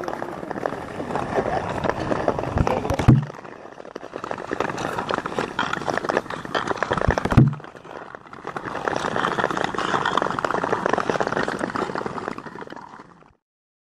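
Ice skate blades scraping and gliding over lake ice, a steady rough hiss with fine crackle, broken by two deep thumps about three and seven seconds in; it cuts off shortly before the end.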